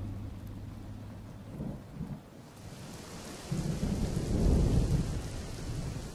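Rain falling, its hiss coming in about two and a half seconds in, with a low rumble of thunder swelling and dying away over the next couple of seconds. A low steady hum fades out in the first two seconds.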